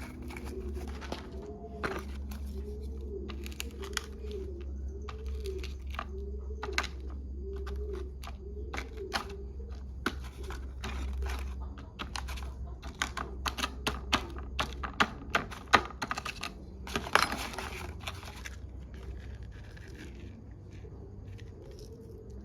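Irregular sharp clicks and snaps from hands-on work, with a short rustling burst about seventeen seconds in. Underneath, for roughly the first half, a dove coos over and over at about two calls a second.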